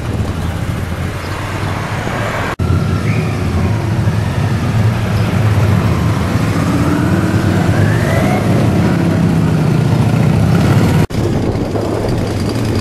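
Motorcycles riding past one after another, engines rumbling and revving as they accelerate by, with the pitch climbing over a few seconds in the middle. The sound breaks off abruptly twice.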